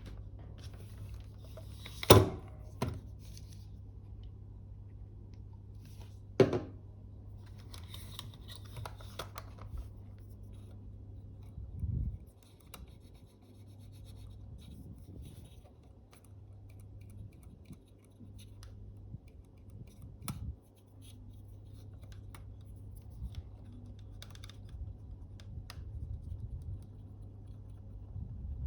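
Small hand tools and camera parts handled during a bench repair of a camera's insides: scattered clicks and taps, a couple of dull knocks, and stretches of faint scratching and rubbing, over a steady low hum.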